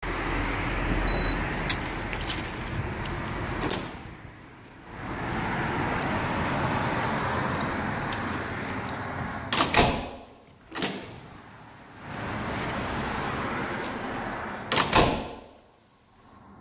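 Metal exit door with a push bar: a short high beep from the key-fob reader about a second in, then the bar's latch clacks and knocks sharply three times as the door is worked, over a steady rushing noise that drops away between them.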